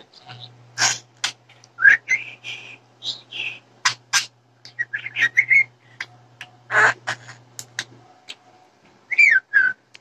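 Budgerigar chattering and warbling: a quick, irregular jumble of short chirps, clicks and whistled notes, with a few rising-and-falling whistles near the end.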